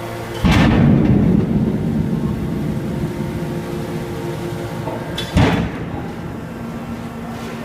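250-ton hydraulic horizontal metal baler running with a steady hum, with a sudden loud crash about half a second in that fades over a second or two, and a sharp bang about five seconds in.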